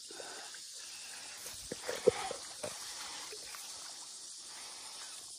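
Faint sloshing and splashing of shallow, muddy river water at the bank, with a few sharper little splashes about two seconds in.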